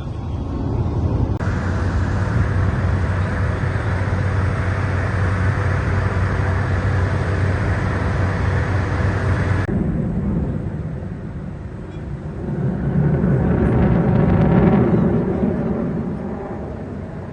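Aircraft engine noise at an airshow: a steady roar that breaks off abruptly about ten seconds in. An aircraft then passes, swelling louder and fading away.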